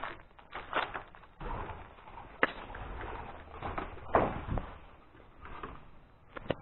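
Irregular footsteps, knocks and scuffs on the wooden boards and steps of an attic, with a few sharp clicks among them.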